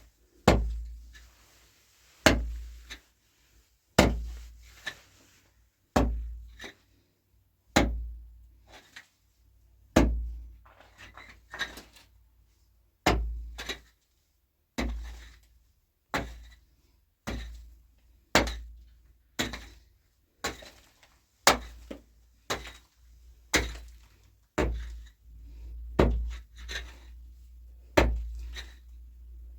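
A long series of heavy knocking blows, each a sharp knock with a low thud. They come about one every two seconds at first and quicken to about one a second in the middle.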